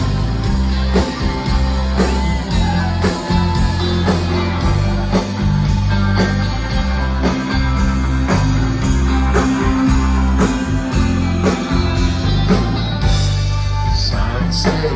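Live country rock band playing, with acoustic and electric guitars, bass, drums and keyboard over a steady drum beat.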